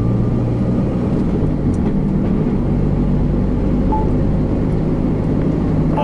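Cargo van driving at steady speed, heard from inside the cab: a constant low engine drone mixed with tyre and road noise.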